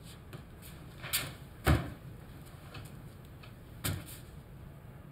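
A few short knocks and thumps over a low room hum, the loudest about a second and a half in, two fainter ones around it.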